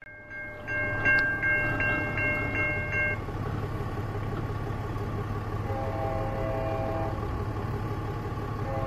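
NJ Transit passenger train rolling past with a steady low rumble. A crossing bell rings rapidly, about three strokes a second, and stops about three seconds in. Then the train's horn sounds a long blast from farther down the line, with a second blast starting near the end.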